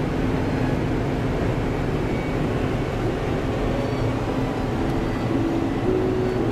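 Steady road and engine noise heard from inside a moving car, with a steady low hum.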